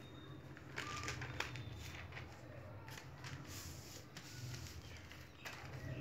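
Faint rustling and crinkling of newspaper sheets being handled and cut, with scattered small clicks, over a low steady hum.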